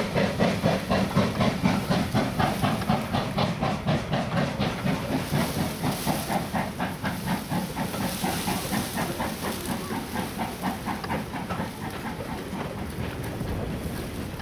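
Steam locomotive working a train, its chimney exhaust beating in a fast, even rhythm that fades as it pulls away.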